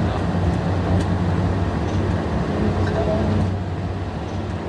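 Steady low hum of the Airbus A340 cockpit before its engines are started, with a few faint clicks.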